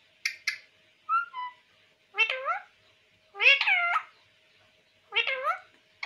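Male rose-ringed parakeet (Indian ringneck) giving a string of short, pitched calls, some in quick pairs, most falling in pitch, about one burst a second. A faint steady tone runs underneath.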